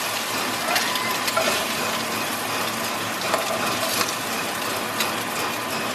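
Meat sizzling steadily in a hot nonstick frying pan, with a few light clicks and taps.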